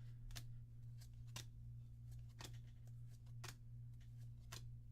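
Trading cards being flipped through one at a time, a soft card snap about once a second, over a steady low hum.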